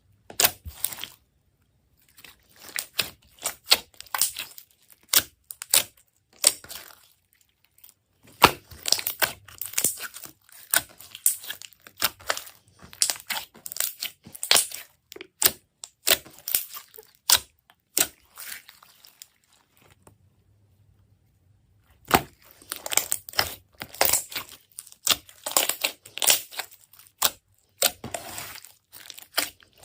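Irregular crackling and crinkling handling noise, with quick clicks in uneven clusters, as slime and balloon rubber are squeezed and worked by hand. It breaks off to silence twice, briefly about a second in and for about two seconds near twenty seconds in.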